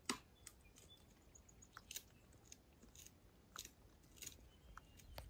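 Near silence with a dozen or so faint, short clicks and ticks scattered at uneven intervals.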